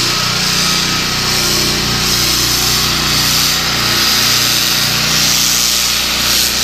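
Concrete saw cutting a control joint into a concrete slab, its engine running steadily under load. The hiss of the blade in the cut swells and eases slightly every couple of seconds.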